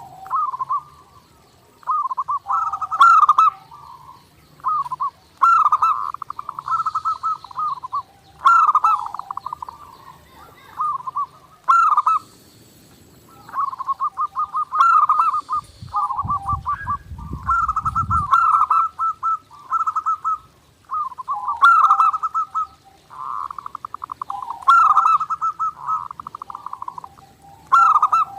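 Zebra dove (perkutut) song: phrase after phrase of rapid, staccato cooing notes, with short pauses between phrases. A low rumble lasts about two seconds around the middle.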